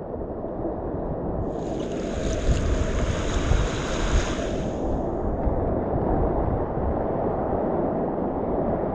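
Steady rush of river whitewater at a surfing wave. From about one and a half to five seconds in, a louder, brighter hiss rises over it, then fades.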